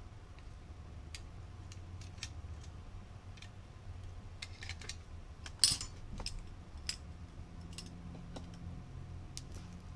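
Scattered small clicks and taps of tweezers and a small screwdriver handling tiny screws, the sharpest one a little past halfway, over a low steady hum.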